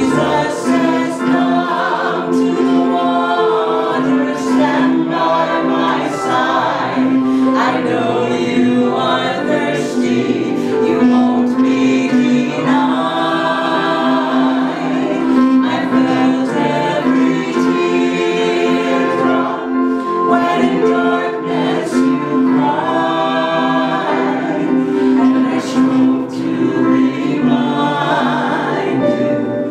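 Two women singing a Christian song together as a duet, over a steady held accompaniment.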